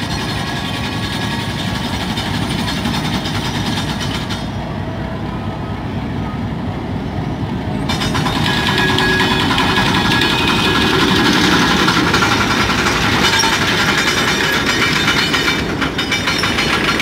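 Pakistan Railways HBU-20 diesel-electric locomotive pulling a passenger train out of a station at low speed, its diesel engine running steadily. It gets louder about eight seconds in as the locomotive comes alongside.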